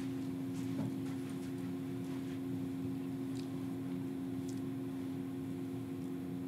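Quiet room tone: a steady low electrical hum under a faint even hiss, with a few faint clicks.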